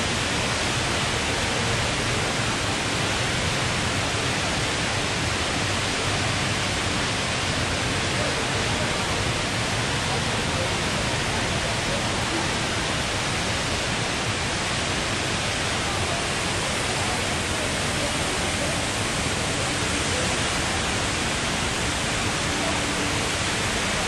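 Rain Vortex, a 40-metre indoor waterfall, pouring in one column through the dome into its pool: a steady, even rush of falling water that does not change.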